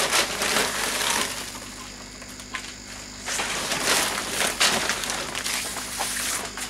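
A plastic tarp rustling and crinkling as it is pulled off an engine and bundled up. The rustle comes in two bouts: one at the start, and a longer one from about halfway to near the end.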